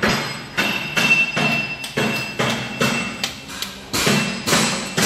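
A hammer striking metal over and over, about two blows a second at an uneven pace, each blow ringing briefly.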